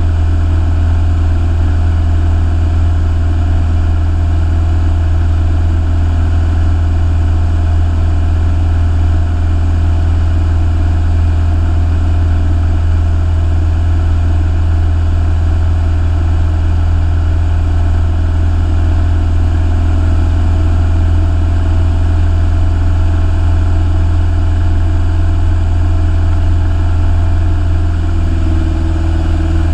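Light aircraft's piston engine and propeller droning steadily, heard from inside the cockpit, with a slight change in pitch near the end.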